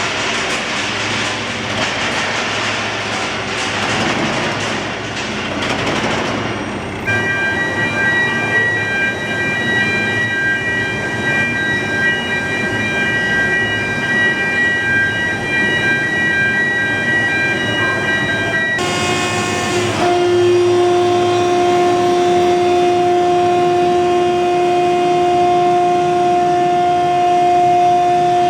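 Loud, steady machinery noise from a tilting rotary aluminium furnace plant. It starts as a rushing roar, changes abruptly about seven seconds in to a steady whine of several high tones, and changes abruptly again near the nineteen-second mark to a steady low hum.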